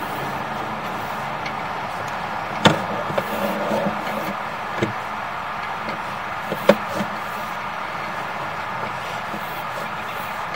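Steady mechanical running noise with two sharp knocks, one about two and a half seconds in and one about six and a half seconds in, and a fainter one between them, as a sewer inspection camera on its push cable is pulled back through the pipe.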